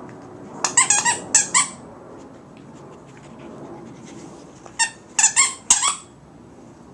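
A squeaky toy being squeezed, sounding in two quick runs of high squeaks: about five near the start and four more around five seconds in.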